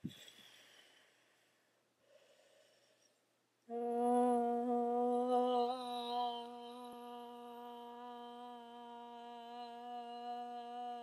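A woman draws two breaths, then about four seconds in starts singing one long note on an open 'ah', held steady in pitch: an attempt to hold a single note for as long as possible.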